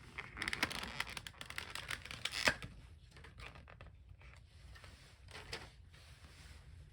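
Plastic packaging crinkling and tearing as a Pokémon promo card is unwrapped, busiest for the first few seconds with one sharp crackle about two and a half seconds in, then fainter rustling.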